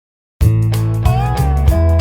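Intro music that begins suddenly about half a second in: a guitar-led tune over a heavy bass line.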